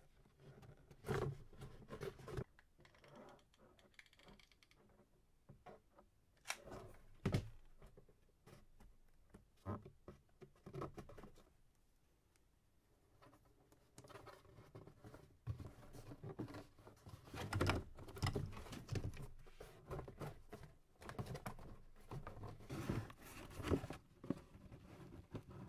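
Cardboard being handled on a work surface: irregular taps, scrapes and rustles, with a quiet stretch about halfway through.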